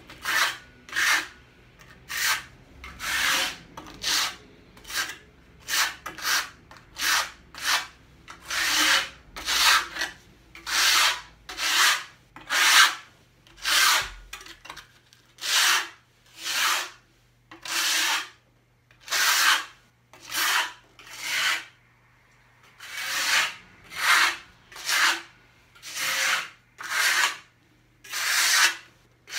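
Steel trowel scraping across a mortar topcoat on a tabletop in repeated strokes, about one a second, some drawn out longer than others.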